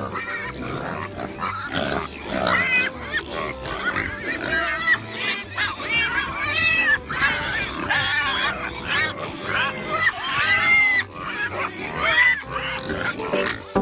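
Several pigs squealing and grunting, many short high calls overlapping, over a soft music bed.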